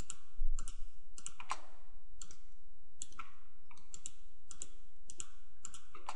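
Computer mouse button clicking about a dozen times at an irregular pace, several clicks coming in quick pairs, as objects are selected one after another. A brief low thump about half a second in.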